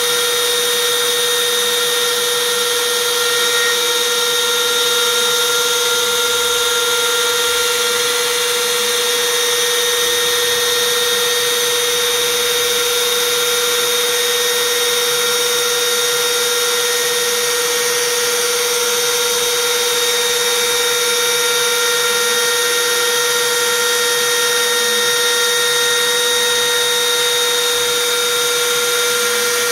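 Carbide 3D router spindle on a Shapeoko CNC running at full speed with a steady high whine while its bit mills a profile in plywood.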